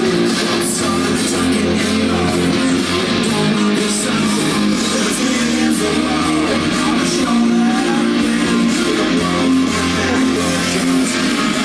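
Guitar-based music playing continuously.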